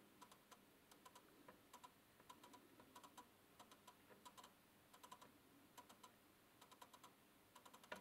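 Canon EF 50mm f/1.8 lens making faint clicking noises from its motor as the adapter drives it electronically, a string of short irregular clicks, some in quick clusters.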